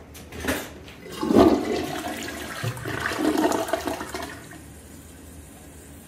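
Tank-type toilet flushing: a short sharp sound about half a second in, then a rush of water down the bowl for about three seconds, which drops away suddenly to a low steady background.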